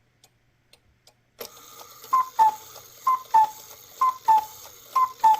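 A clock ticking faintly, then about a second and a half in a cuckoo clock starts calling: four two-note cuckoos, each a higher note dropping to a lower one, about one a second.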